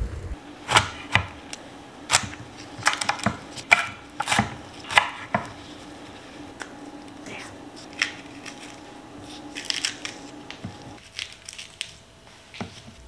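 Kitchen work: a string of irregular sharp knocks and clicks of utensils on a board or dish, over a steady low hum that stops about eleven seconds in.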